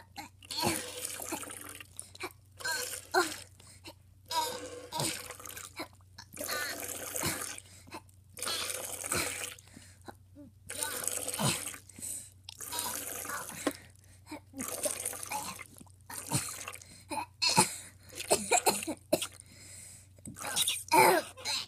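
A child making breathy, splashy mouth noises and gasps in short, irregular bursts, play-acting an upset stomach.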